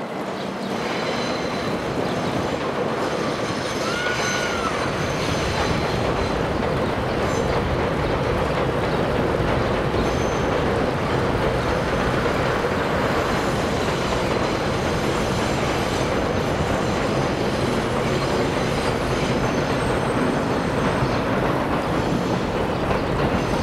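New York City subway train crossing a steel elevated viaduct: a continuous loud rumble of wheels on rail that builds over the first couple of seconds and holds steady. A brief high whine is heard about four seconds in.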